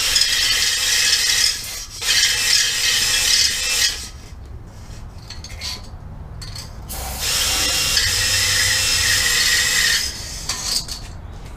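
Cordless drill spinning a small hone in the lifter bores of a small-block Chevy block, running in three bursts of two to three seconds, with a quieter pause of about three seconds before the last one.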